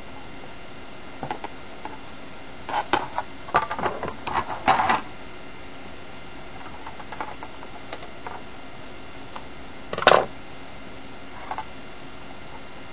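Scissors snipping and trimming electrical tape along the edge of an ABS plastic armour piece: a run of short snips and clicks over a few seconds, then a single louder knock about ten seconds in.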